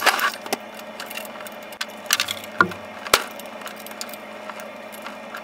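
A few sharp metal clinks and knocks from a wrench and the metal pump parts being handled as the pump head's mounting bolts are tightened to the motor, the loudest about three seconds in.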